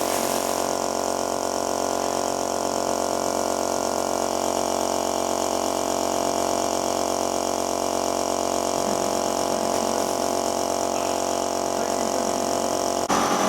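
A motor-driven machine running with a steady hum of several held tones. Near the end a louder, buzzier power tool starts abruptly.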